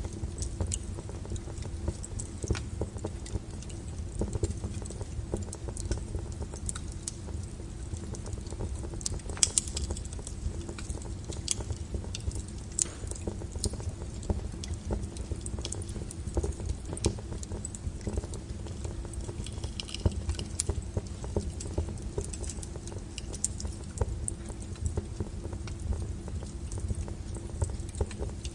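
Wood fire burning, with irregular sharp crackles and pops over a steady low rumble; one louder pop about nine and a half seconds in.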